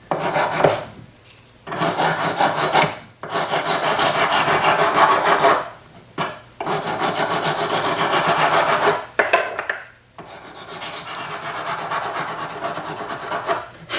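A sanding stick rubbing along the edge of a sterling silver cuff blank to round and smooth it: runs of quick back-and-forth strokes with short pauses between them, the last run softer.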